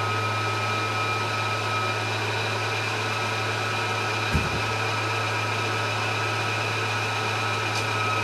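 Graco Ultra Max II 490 PC Pro electric airless paint sprayer running while priming, its pump circulating with no pressure built: a steady hum with a whine above it. A single knock about four seconds in.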